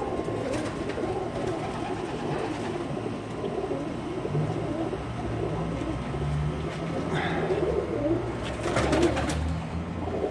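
A loft full of domestic pigeons cooing together, a steady murmur of many birds in a small enclosed coop.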